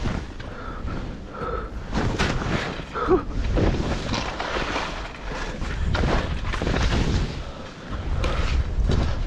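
Skis slashing and plowing through deep powder snow at speed, with wind rushing over the camera microphone and repeated thumps as the skis hit bumps and drops.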